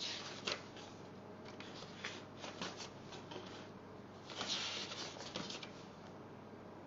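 Paper rustling with soft handling clicks, one louder rustle about four and a half seconds in.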